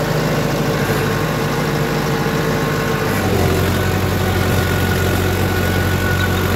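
Mahindra 555 DI Power Plus tractor's diesel engine running steadily under load while working a rotavator, heard close from the driver's seat. Its low note shifts about three seconds in, then holds steady without dropping RPM.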